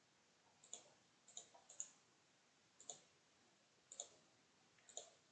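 Computer mouse button clicking: about six faint, sharp clicks at irregular intervals, a couple of them doubled, over a faint hiss.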